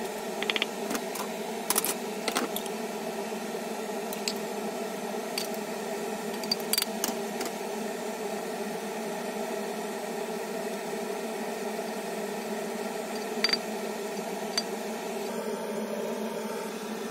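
Scattered sharp clinks and scrapes of a spatula and an aluminium frying pan against the pan and a plate, over a steady hum.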